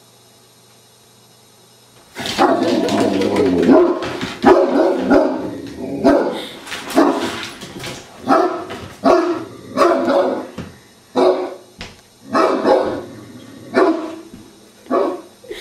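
Great Dane barking, starting about two seconds in: a quick flurry of barks, then loud single barks roughly once a second.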